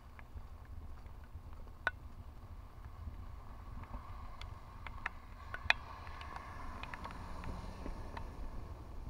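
A pickup truck driving through deep floodwater on a street: a rushing wash of tyre spray that swells over the second half as it comes near and passes. Underneath are a low wind rumble on the microphone and scattered sharp ticks of raindrops striking the camera.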